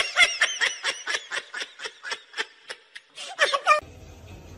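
Rubber squeaky toy squeaked over and over as a dog chomps it in its mouth, about five high squeaks a second, stopping abruptly near the end.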